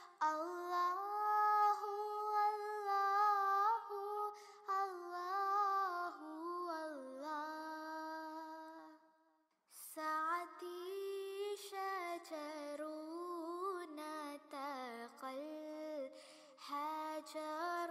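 Solo female voice singing a slow, wordless melody with long held and sliding notes. It breaks off briefly about nine seconds in, then carries on.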